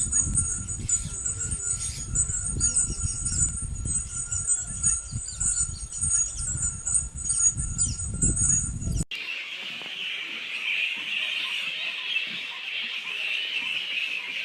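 Bats squeaking: a rapid run of high chirps over low rumbling noise. About nine seconds in it cuts abruptly to a different recording of dense, continuous high chattering, as of a crowded roost.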